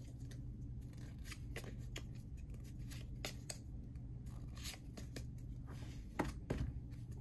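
Pokémon trading cards handled in the hands, a stack squared and rearranged: scattered light clicks and soft rustles, with one sharper click about six seconds in.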